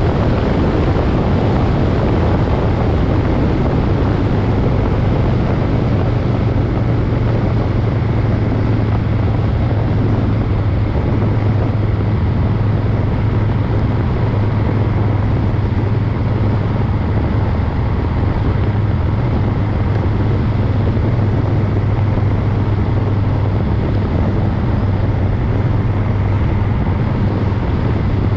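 Moto Guzzi Griso's V-twin engine running at a steady cruise, a low even hum under rushing wind and road noise on the microphone.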